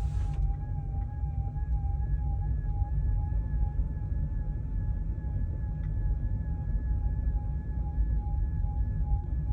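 Volkswagen e-Up's intermittent whistle from the rear of the cabin: a steady, high, slightly wavering whistle over low road rumble, heard inside the moving car. A broad hiss cuts off about half a second in. The whistle comes and goes without any link to road speed, and its cause is unknown.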